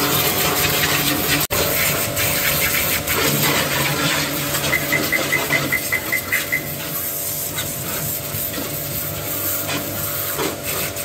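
Agaro 1800 W electric pressure washer running, its motor humming steadily under the loud hiss of the high-pressure water jet blasting dried mud off a car's wheel arch and tyre.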